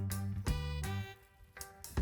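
Background music with a bouncy bass line and percussion, jazzy in style.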